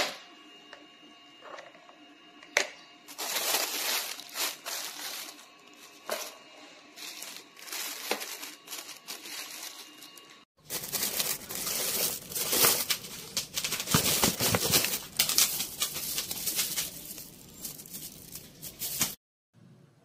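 Plastic wrapping and bubble wrap crinkling and rustling in irregular bursts as the bagged water heater parts are handled. The rustling starts about three seconds in, grows louder partway through, and cuts off shortly before the end.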